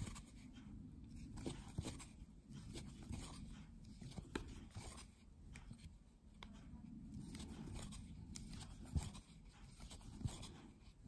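Faint crocheting sounds: a metal crochet hook working white yarn into single crochet stitches, with soft rustling of the yarn and scattered light ticks at irregular times over low background noise.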